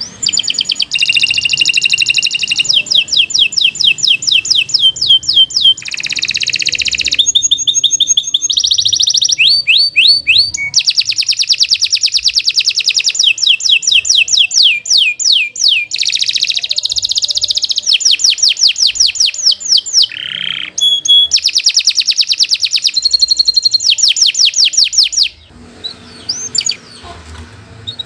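Domestic canary singing a long, loud run of song made of fast repeated trills and rolls, each run of notes changing to a new phrase every second or two, breaking off about 25 seconds in.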